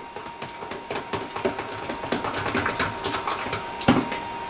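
A spoon stirring pancake batter inside a shake-and-pour mix container, making rapid, irregular clicking and tapping against its sides.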